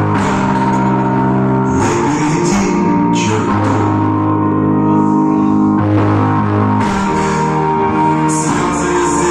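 Music: a song with guitar, steady sustained chords and a beat.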